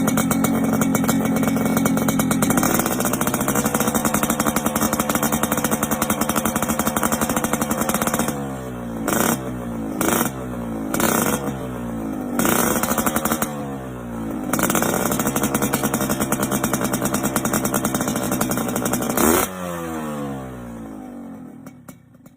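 Kawasaki Ninja 150 R/RR two-stroke single on a racing exhaust, running at a fast idle, then blipped several times with the revs rising and dropping back. After a last blip the engine is shut off and dies away near the end.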